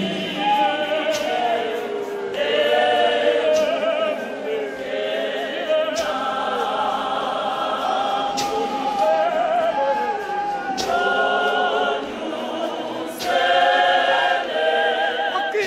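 A large church congregation, mostly women's voices, singing a hymn together, with a sharp beat struck about every two and a half seconds.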